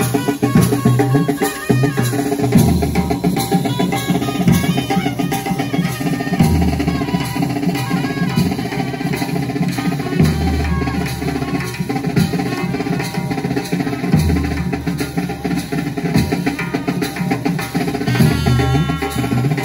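Drum-heavy music: a dense, steady run of drum and percussion beats over a repeated low bass pattern.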